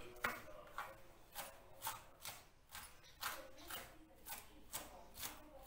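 Kitchen knife chopping celery and coriander on a cutting board, in quick regular strokes of about two a second.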